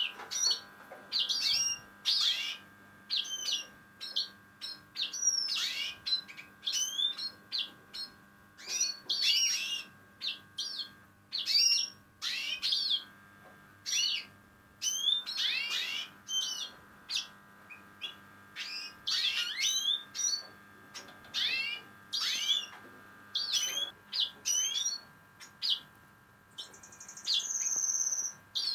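Black siskins (Spinus atrata) calling: clusters of short, high chirps and twitters, several a second, broken by brief pauses. Near the end a steady high note is held for about a second and a half.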